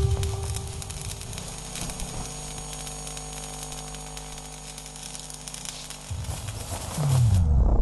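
Electrical sparking from a short circuit: a steady crackling, fizzing hiss over a low hum after a loud burst. Near the end a low sound swells and falls in pitch as the hiss cuts off suddenly, like power dying.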